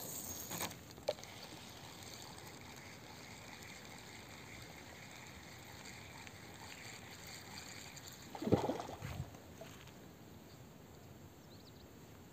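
Quiet open-air background with one short splash on the water surface about eight and a half seconds in.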